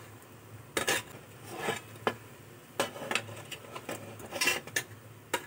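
Metal spatula scraping and clinking against a perforated metal idli-stand plate and pot as a whole marinated chicken is turned over while it steams: a series of short, irregularly spaced scrapes and knocks.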